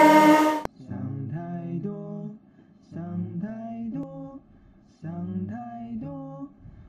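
A loud, bright rising tone that cuts off suddenly less than a second in, then a sung chant of a three-syllable phrase repeated about every two seconds, each phrase three short notes.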